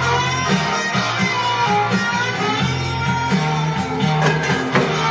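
Background music with guitar, a moving bass line and a steady beat.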